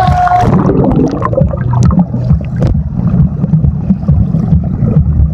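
Water churning and bubbling around a phone held underwater in a waterproof pouch in a swimming pool, heard as a muffled, dense low rumble with faint scattered clicks.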